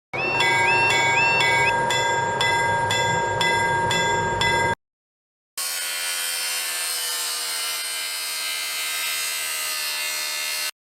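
Railroad level-crossing warning bell ringing in an even rhythm of about two and a half strikes a second, cutting off suddenly about five seconds in. After a short silence, a train runs by with a steady hum that falls slightly in pitch.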